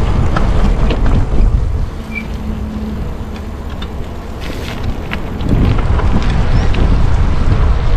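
Wind buffeting the microphone of a Stromer ST2 speed pedelec being ridden: a loud, low rumble that eases for a few seconds in the middle before building again.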